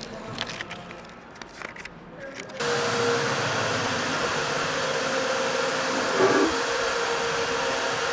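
Steady whirring machine noise with a faint whine. It is absent for the first two and a half seconds, where only light clicks and taps of parts being handled are heard, then comes back and runs on, with one short louder knock about six seconds in.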